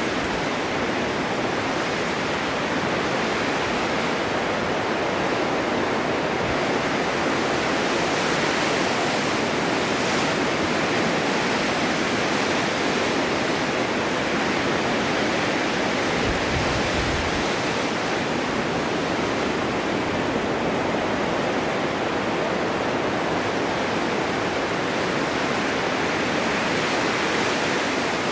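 Snowstorm wind blowing steadily, an even rushing hiss, with a brief low rumble about sixteen seconds in.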